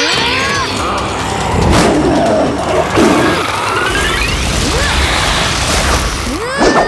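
Cartoon action sound effects: a dense, noisy rumble laced with gliding whooshes and zaps, with sharp crashes about two and three seconds in.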